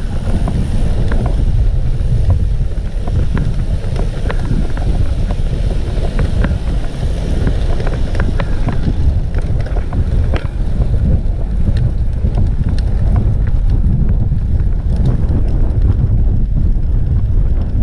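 Wind buffeting the microphone of a camera on a road bike riding at speed: a loud, steady low rumble, with scattered small clicks.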